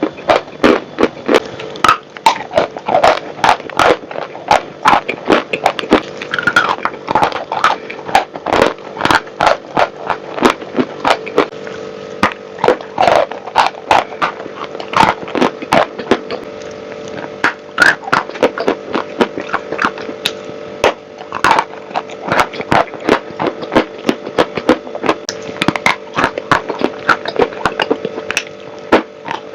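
Dry chalk with clay paste being crunched and snapped, in sharp crisp cracks several times a second, over a faint steady hum.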